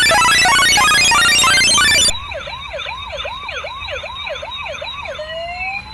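A loud jangle of rapid electronic beeps cuts off abruptly about two seconds in. Then a toy ambulance's electronic siren warbles fast, about three cycles a second, and near the end changes to a slow rising wail.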